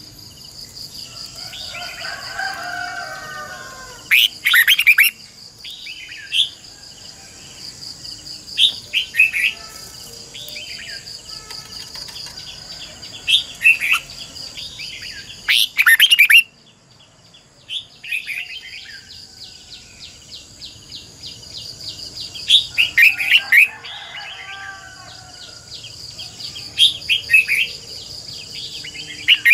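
Red-whiskered bulbul singing: short, loud phrases of quick whistled notes, a few seconds apart. Under them runs a steady high insect drone that drops out for a couple of seconds about halfway through.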